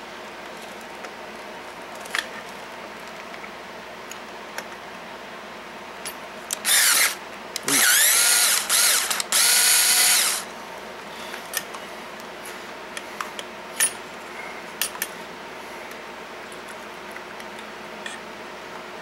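Power drill run in three short bursts, its motor whine rising in pitch as it spins up. Light clicks and knocks from handling parts come before and after.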